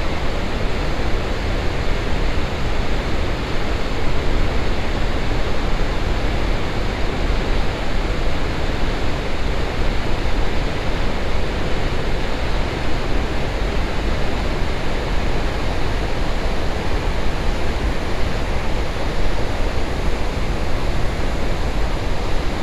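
Little River Falls, a wide waterfall about 46 feet high running high after heavy rain, with its churning river below: a loud, steady rush of falling and rushing water.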